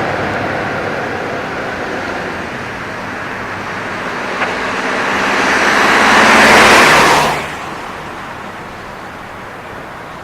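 Scania V8 480 livestock truck with an open, straight exhaust pipe driving past with its exhaust crackling and popping. The sound swells to its loudest about seven seconds in, then drops away suddenly and fades as the truck goes by.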